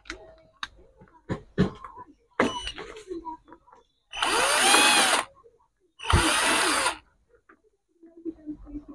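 Cordless drill-driver backing out screws to open the dispenser's circuit-board housing. A few clicks come first, then the motor runs twice, about a second each time, its whine bending up and down in pitch.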